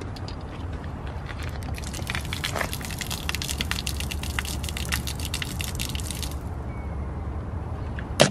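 Water poured out of a plastic bottle splashing onto asphalt pavement, starting about two seconds in and stopping after about four and a half seconds, over a steady low rumble. A single sharp knock near the end.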